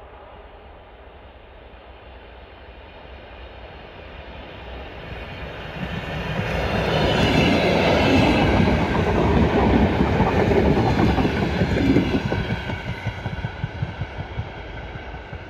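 Electric commuter train passing close by: a rumble that swells as it approaches, is loudest for several seconds as the cars go past, then fades as it pulls away. Near the end the wheels clatter in quick clicks over the rail joints.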